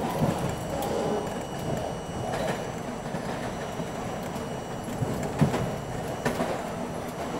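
R42 subway car running along open track, heard from inside the front car: a steady rumble of wheels on rail, with clacking from the wheels and a few sharp knocks, the loudest about five and a half seconds in.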